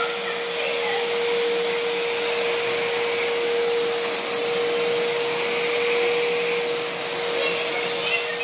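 Amazon Basics 1400 W, 15-litre wet-and-dry vacuum cleaner running steadily, its floor nozzle moving over a tiled floor. A rush of suction air carries one steady whining tone throughout.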